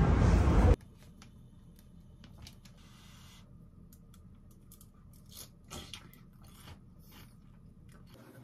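Loud train-station platform noise that cuts off suddenly under a second in. Then close-up eating sounds: scattered small clicks of chopsticks against a ceramic bowl and chewing of noodles and vegetables, with a few louder clicks a little past the middle.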